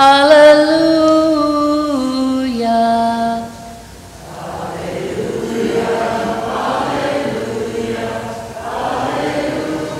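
A female cantor sings the last 'alleluia' of the Gospel acclamation alone, holding the final note. After a short gap about four seconds in, the congregation sings the alleluia back together, a blurred sound of many voices in a reverberant church.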